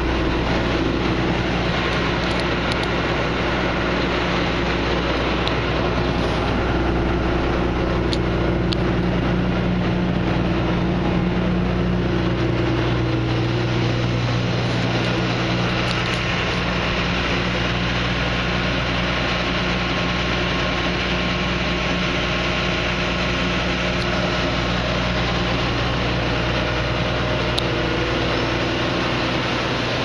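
Claas Avero 240 combine harvester's Perkins 205 hp diesel engine running steadily with a constant low hum.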